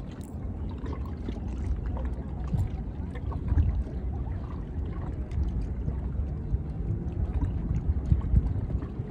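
Small waves lapping and splashing against shoreline rocks, with wind noise on the microphone.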